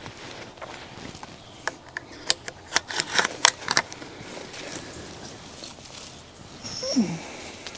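A run of sharp mechanical clicks and snaps, about a dozen in two seconds, as a hunting gun is handled right after a shot. A short falling sound comes near the end.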